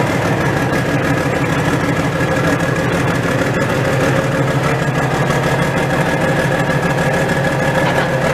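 Modified pulling tractor's engine idling at a steady, unchanging speed.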